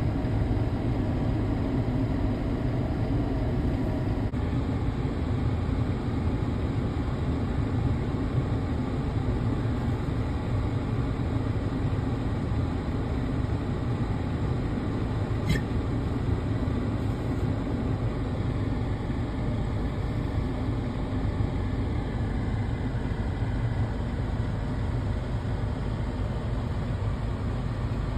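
Steady vehicle engine noise, a continuous low rumble, with a single sharp click about halfway through.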